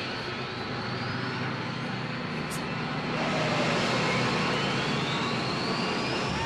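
Old film trailer soundtrack: a jet-like engine whine rising steadily in pitch as the winged 'missile-firing superbike' takes off, growing louder about three seconds in.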